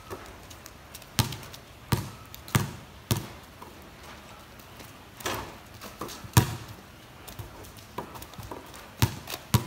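A basketball bouncing on a wet concrete court: about eight sharp, irregular thuds, some in quick pairs.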